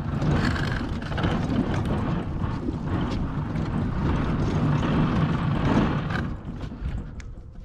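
A large double-door refrigerator being dragged over dirt and concrete: a continuous gritty scraping and rumbling that eases off about six seconds in.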